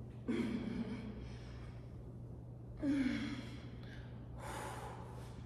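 A woman's effortful breaths out during a dumbbell workout: two short voiced breaths with a falling pitch, one right at the start and one about three seconds in, then a breathy exhale near the end, over a steady low hum.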